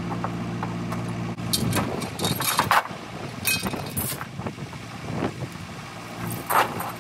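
Steel rigging chain clinking and rattling in short bursts as it is handled. A backhoe engine idles steadily for the first second and a half, then drops out.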